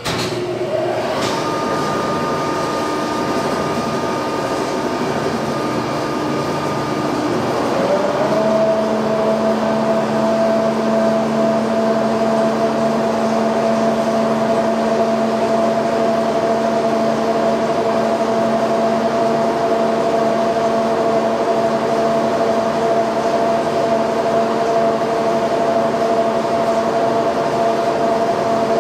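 Giddings & Lewis 340T horizontal boring mill starting up and running, its drive giving a loud, steady hum with a whine over it. About seven seconds in the pitch rises and settles into a higher, steady whine.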